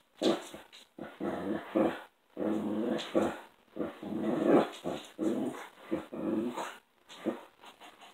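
A dog grunting and growling in a long string of runs, each up to about a second, with short pauses between them, as it scratches its back against a chair.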